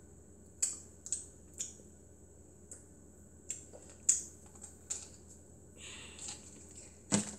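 Irregular sharp clicks and taps, about a dozen, from a small plastic bottle of chewable vitamins being handled, with the loudest click about four seconds in and another near the end.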